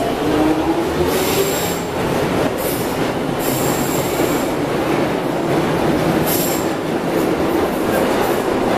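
London Underground tube train moving along the platform, a loud steady rumble of wheels and motors. Three brief high-pitched wheel squeals come through it, about a second in, near the middle and again about two-thirds of the way through.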